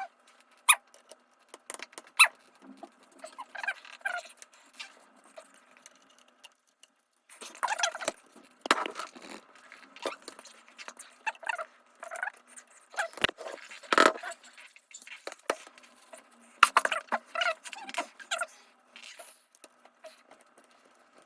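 Scattered small clicks, taps, scrapes and short squeaks of laptop parts being handled and worked with tools during disassembly, with a few sharper knocks.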